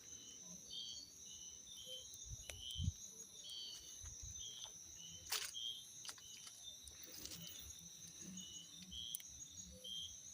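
Crickets chirping: a steady high trill with a shorter chirp repeating over and over beneath it, and a few faint scattered clicks and soft low thumps.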